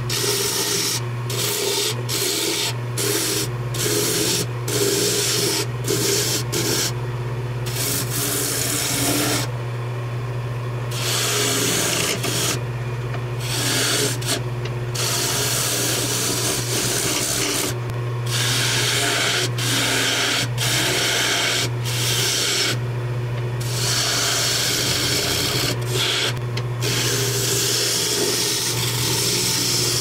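Jet wood lathe running with a steady low motor hum while a carbide chisel cuts into the spinning log blank. The cutting is a loud rasping hiss that breaks off and resumes many times as the tool meets and leaves the wood.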